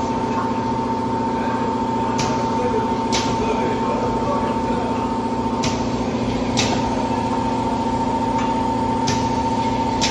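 Multi-blade paper tube machine running with a steady hum and a constant whine. Sharp clicks come in pairs about a second apart, a pair roughly every three and a half seconds, three times.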